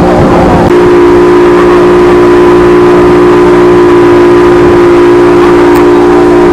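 An engine running with a loud, steady drone of a few constant pitches; a low rumble beneath it drops away under a second in.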